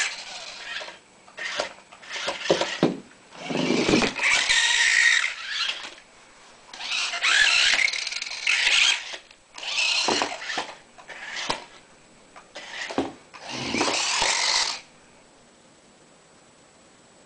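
Odyssey remote-control toy car's small electric motor and gears whirring in repeated spurts of a second or two as it is driven, stopping about fifteen seconds in.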